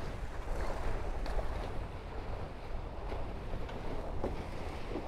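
Water rushing along the hulls of a Tornado catamaran under sail, with wind rumbling on the microphone.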